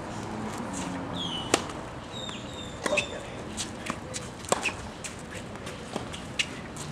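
Tennis ball being struck by rackets and bouncing on a hard court in a rally, a sharp pop about every second and a half, over a low crowd murmur, with a few short high squeaks.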